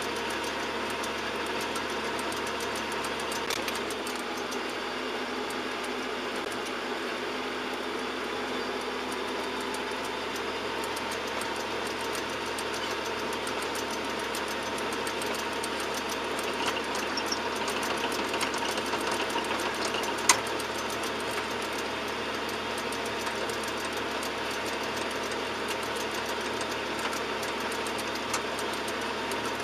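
John Deere 7710 tractor's six-cylinder diesel engine running steadily while ploughing with a Lemken EurOpal 7X plough, with a single sharp click about two-thirds of the way through.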